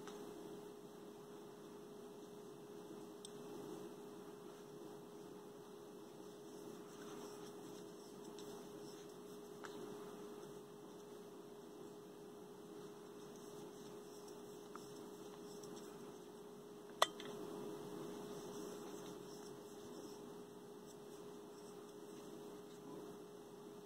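Steady electrical hum, a single unchanging tone, with faint rustle from crochet hook and yarn handling. One sharp click about two-thirds of the way through.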